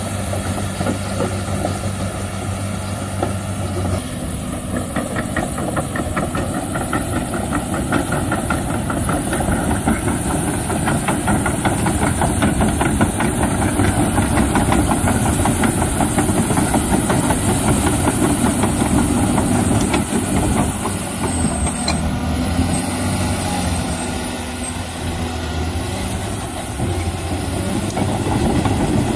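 Six-cylinder diesel engine of a Komatsu PC290LC-10 excavator idling steadily, then running louder and busier from about four seconds in. It eases off for a few seconds near the end before picking up again.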